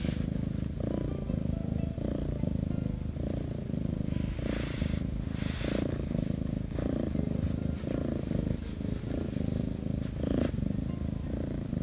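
Korean shorthair kitten purring steadily while being stroked, the purr swelling and easing with each breath. Two brief rustles come about halfway through.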